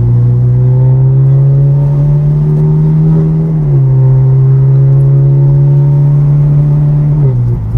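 Car engine pulling under gentle acceleration. Its pitch climbs slowly, drops sharply at an upshift a little under four seconds in, climbs again and drops once more near the end.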